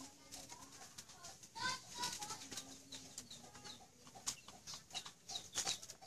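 Water splashing in a metal basin as a rabbit carcass is dunked and worked in it, in short sharp splashes. Birds and chickens call faintly in the background.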